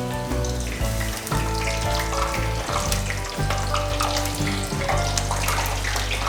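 Pasta pakodas deep-frying in hot oil, a steady crackling sizzle, under background music with held notes and a strong bass.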